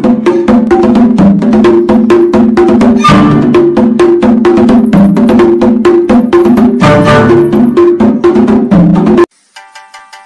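Loud percussive background music: a fast, clacking wood-block-like beat over a repeating low melody. It cuts off abruptly about nine seconds in, and soft plucked notes follow.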